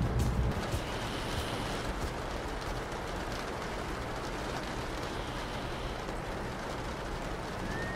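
Steady rain pattering heavily against windows, an even hiss. A low rumble fades out in the first second, and a thin high tone starts near the end.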